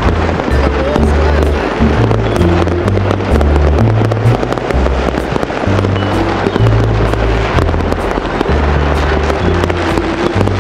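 Fireworks popping and crackling over music with a deep bass line that steps to a new note about every half second.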